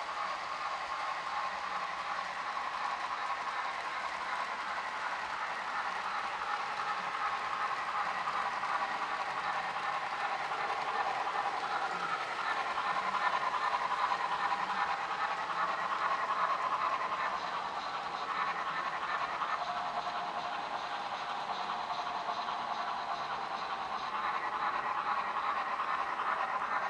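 Model steam locomotive and freight cars running along the layout track: a steady whir of motor and gearing with wheels rolling over the rails, getting a little louder in the middle as the train passes close.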